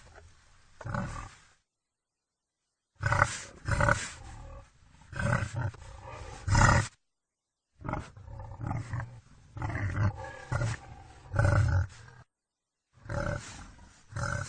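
Wild boar calling in a string of short, loud bursts. The calls break off three times into dead silence where separate recordings are spliced together.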